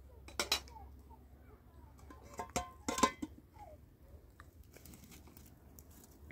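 Metal cookware clattering at an open wood fire as pans and a lid are handled, in a few separate clanks: about half a second in, around two and a half seconds, and the loudest near three seconds, which rings briefly.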